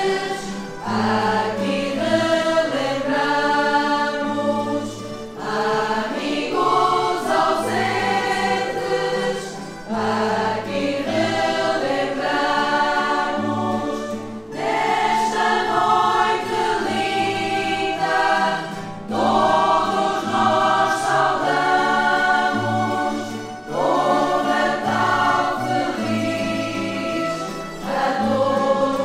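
A choir of women singing a church song together, in phrases of a few seconds with brief breaths between them.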